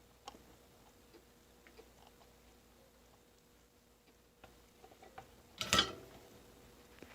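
Faint scattered clicks and taps of wires and a soldering iron being handled while a joint is soldered, with one short loud rush of noise about five and a half seconds in.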